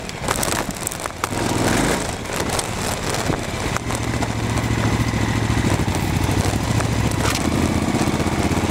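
KTM 950 Adventure S's V-twin engine running at low speed on a dirt track, with crackle from the tyres and the ride. From about four seconds in the engine settles to a steady, even beat.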